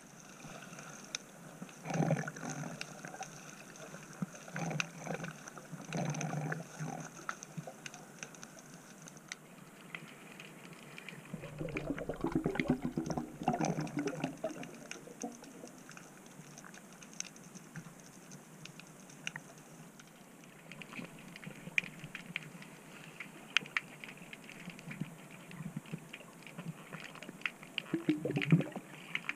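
Underwater sound heard through a camera's waterproof housing: scattered faint crackling clicks, with muffled knocks and rustles from hands working among sand, shells and rocks on a creek bed. A louder muffled rush comes about twelve seconds in and lasts a couple of seconds.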